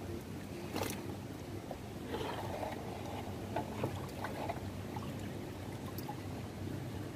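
Small boat engine running steadily with a low hum, with a sharp knock about a second in and a few softer knocks and clatters in the middle.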